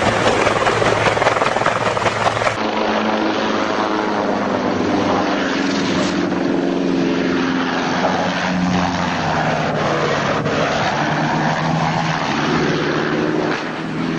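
Helicopter engine and rotor noise: a low-flying helicopter's roar for the first couple of seconds, then, after a cut, a small helicopter's steady engine drone whose pitch wavers up and down.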